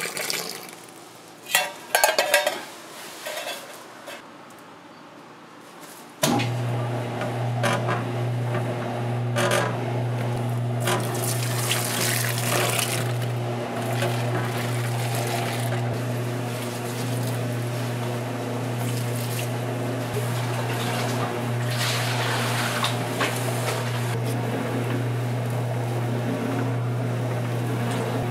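Utensils clink and knock against a bowl. About six seconds in, an electric dough mixer switches on and runs with a steady hum, with the dough scraping and churning in the bowl.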